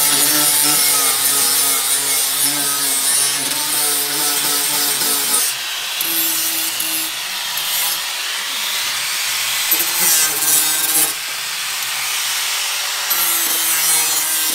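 Angle grinder grinding metal, a continuous harsh grinding whose motor pitch wavers as the disc is pressed on and eased off; it cuts off abruptly at the end.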